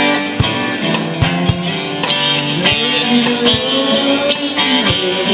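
Guitar music: an instrumental passage of a song with no singing, with a note gliding up and down in the middle.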